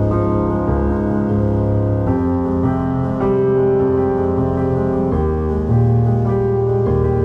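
Background music led by piano, slow held chords that change every two to three seconds.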